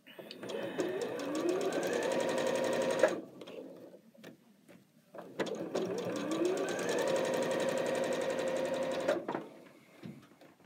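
Electric sewing machine stitching a quilt border in two runs of about three and four seconds. Each run rises in pitch as the motor speeds up, then holds steady, with a light pause between them.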